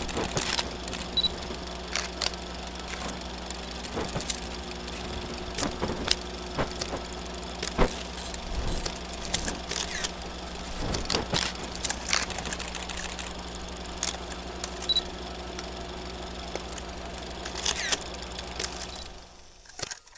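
Old 8mm film sound effect: a steady projector hum with irregular crackles and pops of worn film, fading out near the end.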